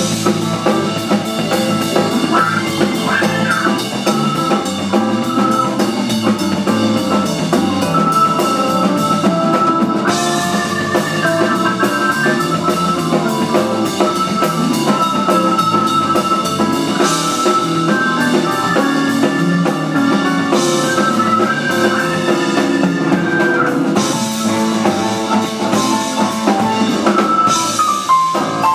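Live rock band playing an instrumental: drum kit, electric bass, Hammond B-3 organ, piano and electric guitar playing together at a steady, loud level.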